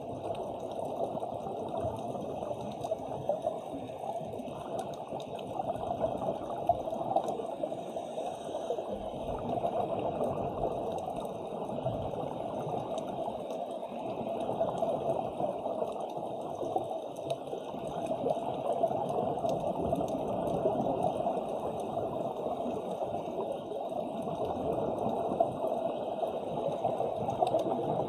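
Continuous underwater bubbling and gurgling, swelling and fading every few seconds.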